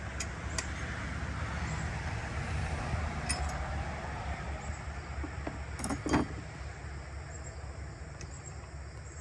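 Spark plug being removed from an old chainsaw engine with a hand tool: a few light metallic clicks and one louder knock about six seconds in, over steady low background noise.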